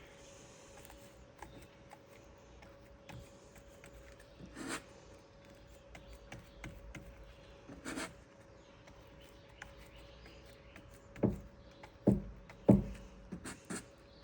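Quiet handling noises while sponge-painting a rifle stock: a couple of brief rustling scrapes, then several soft knocks close together near the end, over a faint steady hum.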